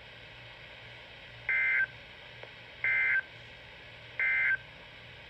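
EAS end-of-message data burst on weather radio: three short, identical two-tone digital screeches about a second and a half apart, signalling the end of the severe thunderstorm warning. A faint steady hum lies under them.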